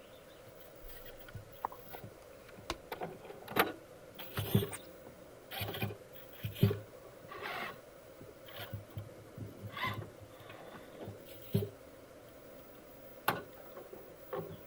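Traxxas TRX-4 Defender RC crawler clambering over loose rocks: irregular knocks, clacks and scrapes of its tires and chassis against stone, with several sharp clacks standing out.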